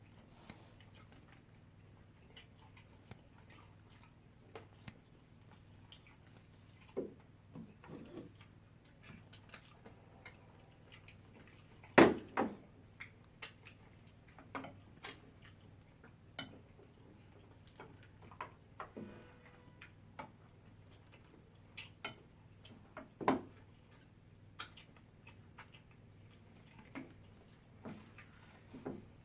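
Cutlery clicking and clinking against plates while eating, in scattered single clicks every second or two, with one loud knock about twelve seconds in. A faint steady hum runs underneath.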